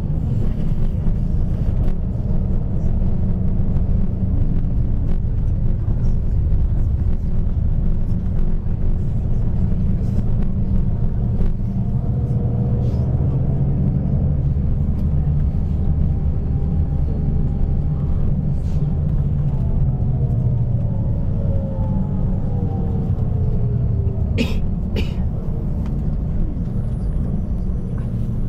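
Bus engine and road noise, a steady low rumble, with a whine that falls in pitch over several seconds in the second half and two sharp clicks near the end.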